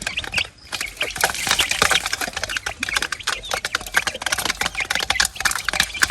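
A flock of chickens calling while feeding, with many quick clicks and taps mixed in.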